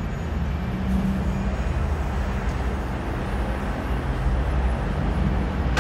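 Steady road traffic on a busy urban road, a continuous low rumble of cars and vans passing.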